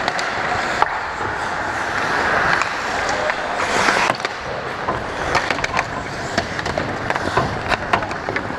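Ice hockey skates carving and scraping on the ice around the goal, with a loud skate scrape that stops sharply about four seconds in. After it come many sharp clicks and taps of sticks and puck near the crease.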